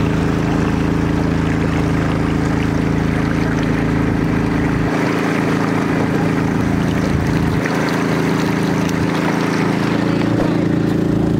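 Sonali 170FD 208 cc single-cylinder petrol long-tail boat engine running steadily under way, with water rushing and splashing along the wooden hull.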